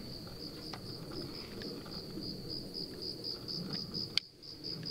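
Crickets chirping in a steady train of rapid, even pulses at a high pitch over a low background rumble, with a single sharp click about four seconds in.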